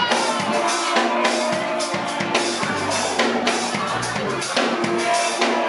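Live blues band playing, with a drum kit's bass drum and snare hits over sustained keyboard notes.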